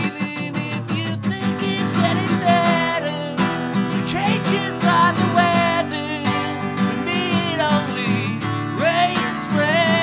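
Acoustic guitar strummed in a steady rhythm, with a man singing a melody over it from about two seconds in.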